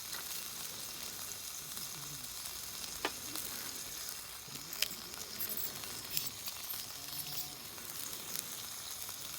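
Food frying in a pan on a camp burner, a steady sizzle and crackle, with a few sharp clicks about three, five and six seconds in.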